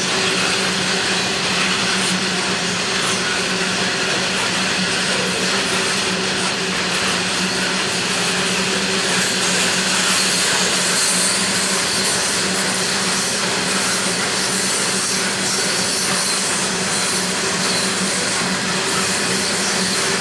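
Loaded coal hopper wagons rolling past on steel rails: a steady, unbroken rumble and rush of wheels and bogies, with a low steady hum running through it.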